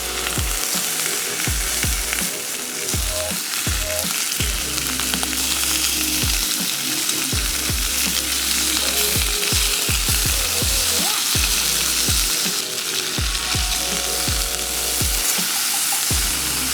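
Food frying in a hot pan: a steady, loud sizzle.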